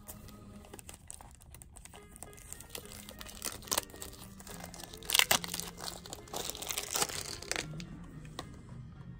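Cellophane shrink-wrap being torn and crumpled off a cassette case: irregular crinkling that builds in the middle and is loudest about halfway through, then dies away.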